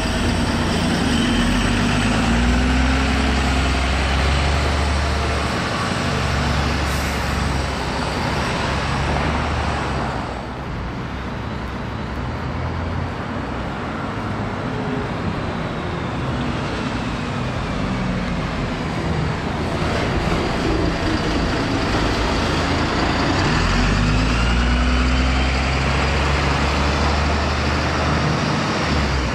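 Diesel engines of Wright Gemini 2 double-deck buses on VDL DB300 chassis in street traffic: one bus pulls past close by, then after a break in the sound a second bus runs up the road, its engine growing louder as it nears and turns near the end.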